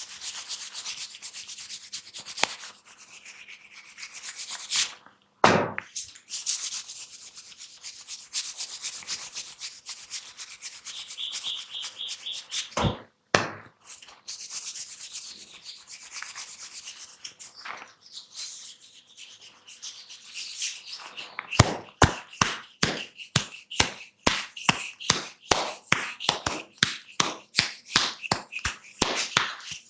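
Hands rubbing and scratching through hair and over the scalp in a head massage, a dense scratchy rustle with a few isolated knocks. About two-thirds of the way through it turns into a quick, even run of sharp clicks, about three a second, which are the loudest sounds.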